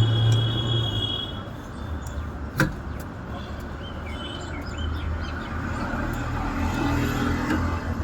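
A motor vehicle running close by: a loud low hum fades out about a second in, and a lower, uneven rumble follows. There is a single sharp click about two and a half seconds in.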